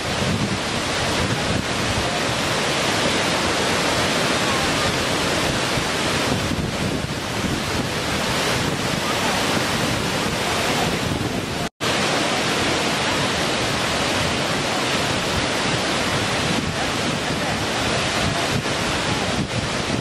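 Waterfall rushing steadily over rock, a dense even roar of falling water, broken by a split-second gap about halfway through.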